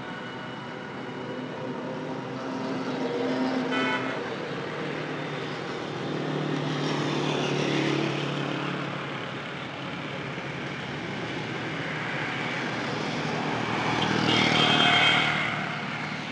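Road traffic passing close by, the noise swelling as each vehicle goes by and loudest near the end, with brief horn toots.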